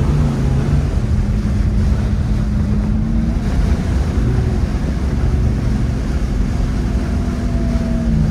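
A 427 big-block V8 of a 1967 Chevrolet Chevelle running under way at a cruise, heard from inside the car with the windows down, with wind noise. The engine note stays fairly steady, with small shifts in pitch about three seconds in and near the end.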